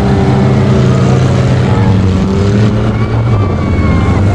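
Engines of several small off-road jeeps running steadily as they drive in convoy over loose sand, their pitch shifting slightly as they change speed.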